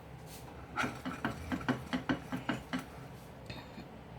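A quick run of light knocks and scrapes of a utensil against a cooking pan, about six a second for some two seconds, while the pan of thick boiled sugar syrup is handled as it comes off the heat.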